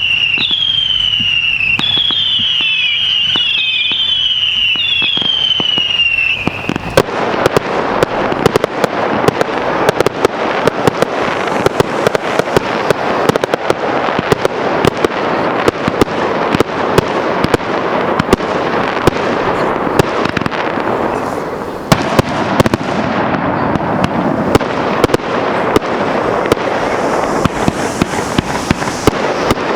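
Fireworks display: a string of shrill whistles, each falling in pitch, for the first six seconds or so. Then from about seven seconds in, dense crackling with rapid sharp pops, easing briefly near the twenty-two-second mark before going on.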